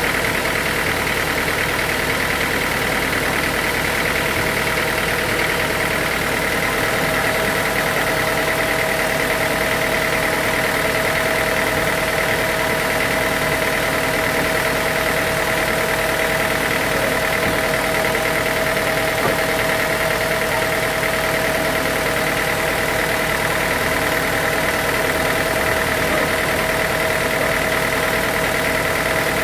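Sawmill machinery running steadily, an engine at idle with a constant whine over it, unchanging throughout.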